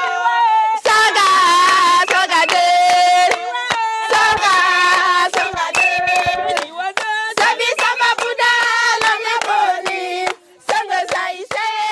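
Group of women singing together while clapping their hands, the song breaking off briefly near the end.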